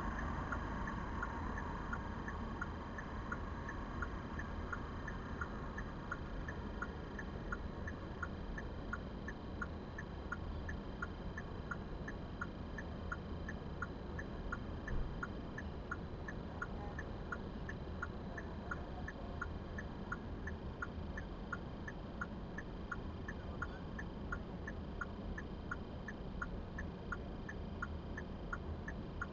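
A car's turn-signal or hazard-light flasher ticking steadily, a little under two ticks a second, over the low hum of the car, with one brief knock about halfway through.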